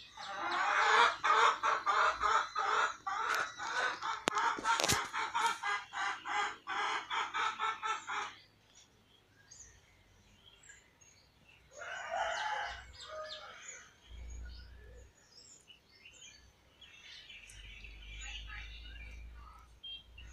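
Bird calls: a rapid run of loud repeated calls, about four a second, for roughly eight seconds, then a shorter burst of calls about twelve seconds in.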